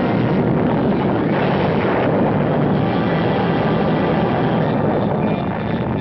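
Loud, steady rushing roar of a nuclear blast wind and rumble, as laid onto newsreel footage of the blast wave.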